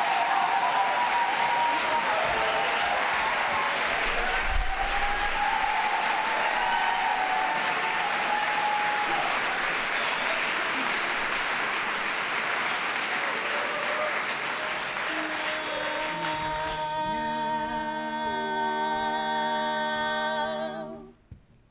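Audience applauding and cheering after a barbershop chorus song. From about 15 seconds in, the applause dies away under a steady sustained chord that builds up note by note: the chorus taking its pitch and humming the opening chord for the next song. The chord cuts off just before the end.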